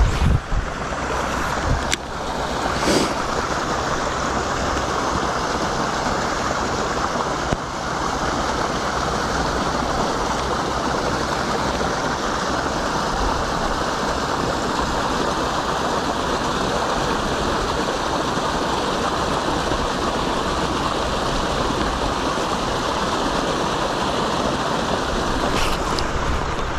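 Steady rush of flowing river water, with a few short clicks in the first three seconds.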